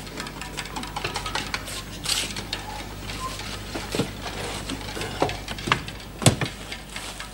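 Wooden tomato crate being prised open and handled: a run of small clicks and creaks from the slats, with a few sharper knocks in the second half.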